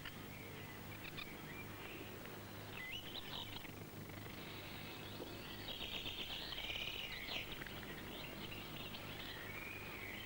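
Birdsong: scattered chirps and short whistled glides, with a busier twittering stretch around six to seven seconds in, over a faint steady low hum.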